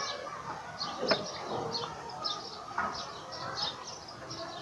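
A small bird chirping over and over, a short high chirp every third to half second. Two light knocks come about a second in and near three seconds.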